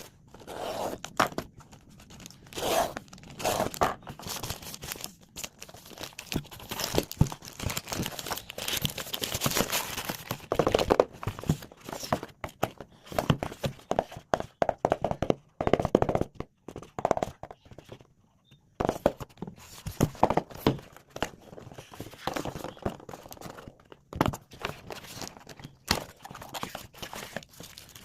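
Packaging being handled and opened by hand: irregular crinkling, tearing and rustling with small knocks, pausing briefly about two-thirds of the way through.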